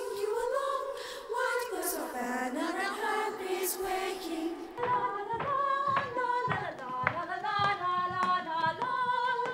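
A group of female voices singing a song. About five seconds in it changes to a brisker passage with a steady beat.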